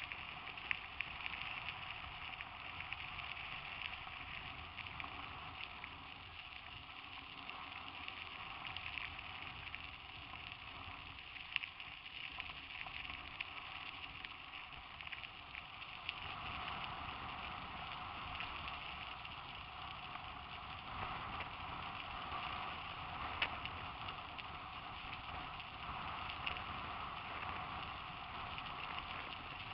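Mountain bikes rolling along a dirt and gravel track, picked up by a helmet-mounted camera: a steady hiss of tyres and wind with scattered small clicks, thickening about halfway through.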